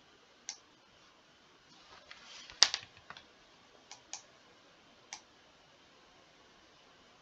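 Computer mouse clicking: about five single sharp clicks at irregular intervals, the loudest about two and a half seconds in, just after a brief rustle.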